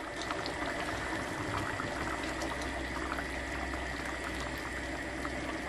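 Shrimp and orzo in tomato broth bubbling at a simmer in a cast-iron skillet: a steady hiss of fine popping bubbles as the shrimp cook through.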